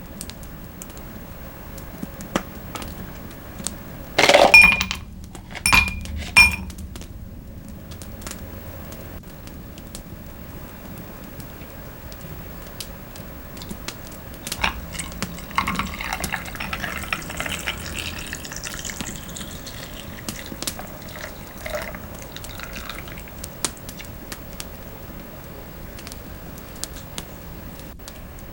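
A ceramic cup or dish clinking with a short ring about 4 seconds in and twice more a couple of seconds later, then liquid being poured for several seconds, over a faint fireplace crackle.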